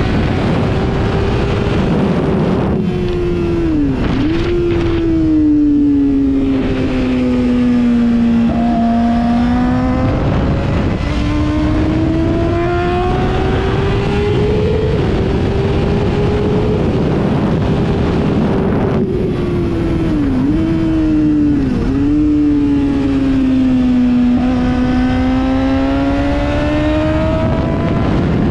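Onboard sound of a Yamaha sport bike's engine at speed: the note rises steadily for several seconds under throttle, falls back as the bike slows, and dips sharply for a moment three times, over a constant rush of wind.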